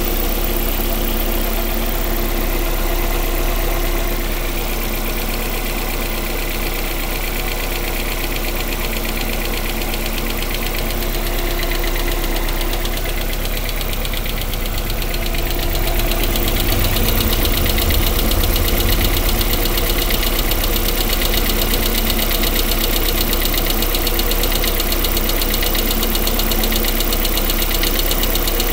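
Lada Priora four-cylinder petrol engine running with a steady, rapid knock after long standing. The hydraulic lifters or the piston and connecting-rod group are named as the suspects. It gets somewhat louder about halfway through.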